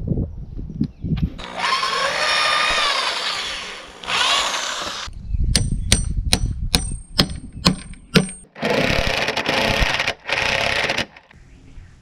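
A hammer strikes a steel rod set through a timber brace about seven times in quick succession, each blow ringing with a high metallic note. Before and after the blows come longer stretches of loud power-tool noise.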